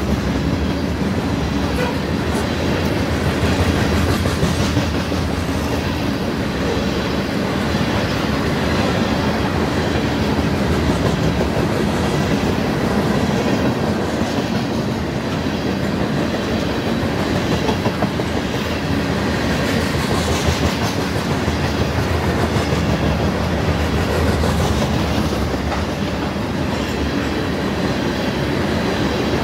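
A train's cars rolling steadily past, their wheels clicking over the rail joints.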